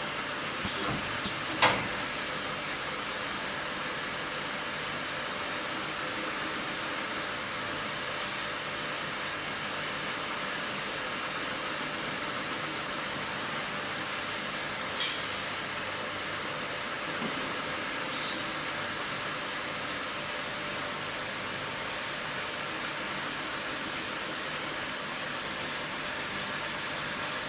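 A machine for making metal scouring pads running steadily with a constant whirring hiss. A few sharp clicks come in the first two seconds, and one more about halfway.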